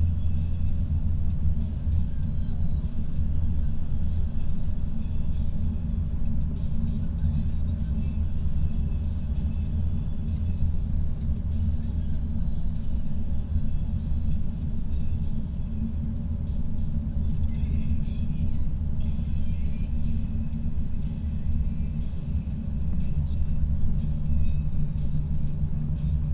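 Steady low rumble of road and engine noise inside a car cabin cruising at highway speed.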